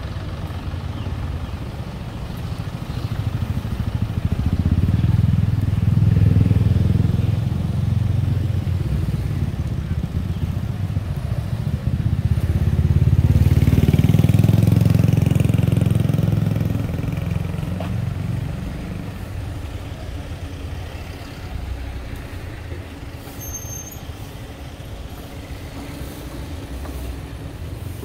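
Road traffic passing close by: cars and a motorbike, their engine and tyre noise swelling twice, about five seconds in and again around the middle, then settling to a lower rumble.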